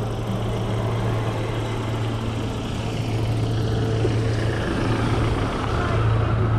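Cyrusher Ranger fat-tyre e-bike riding along: a steady low drone with a rushing noise over it.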